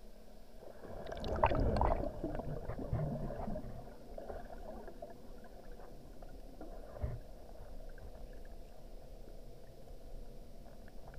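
Muffled underwater noise heard through a camera in its housing: water movement with bubbling and small clicks, loudest between about one and three and a half seconds in, then a steady low rumble with a single dull knock about seven seconds in.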